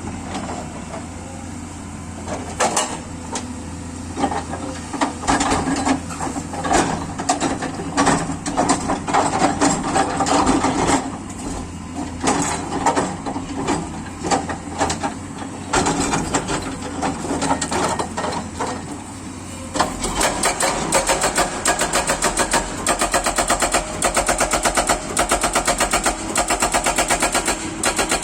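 Kato excavator's engine running under load, with irregular knocks and clatter as it works large rocks. About twenty seconds in, a fast, even pulsing takes over.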